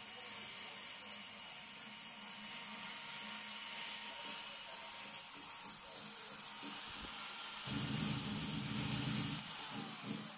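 Steady, even hiss, with a low rumble coming in about eight seconds in.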